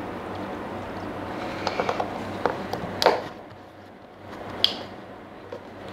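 Milk pouring from a carton into a blender jar of dates, a steady splashing, followed by small clicks and a sharp click or two as the carton's plastic screw cap is handled.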